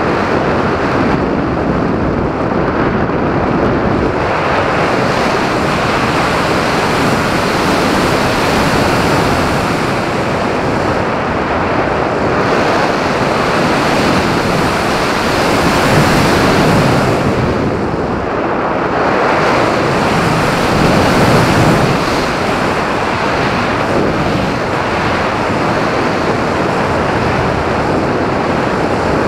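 Steady loud rush of air over the microphone of a camera mounted on a flying RC glider, swelling a little twice in the second half.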